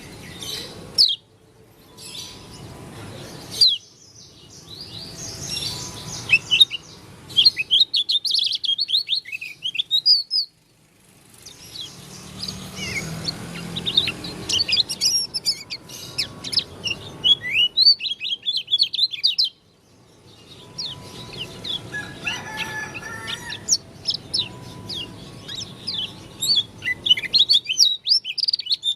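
Pleci dakun, a white-eye from Lombok, singing in long runs of rapid, high chirping twitters, broken by short pauses about ten and twenty seconds in. The song is an unusual one for this bird.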